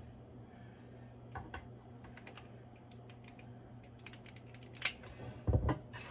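A metal ice cream scoop clicking and scraping against a stainless steel mixing bowl and a metal muffin tin as sticky dough is scooped out and dropped into the cups. There are scattered light clicks, and a louder dull thump near the end.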